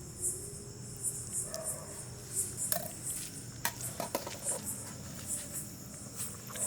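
A few sharp clicks and clinks of utensils against dishes, most of them near the middle. Short, faint, high chirps repeat about twice a second underneath.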